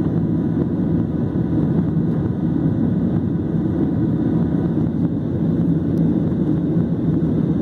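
Steady roar of a jet airliner's engines and airflow heard from inside the passenger cabin during the climb after takeoff.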